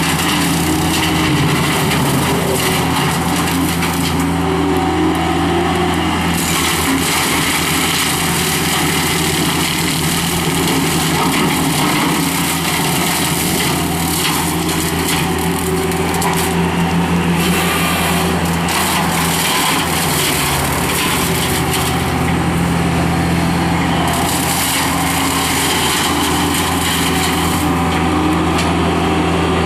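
Skid steer loader's engine running at steady high throttle, powering a hydraulic brush cutter, with a rough, changing noise from the cutter over the engine note. The engine note shifts slightly about two-thirds of the way through.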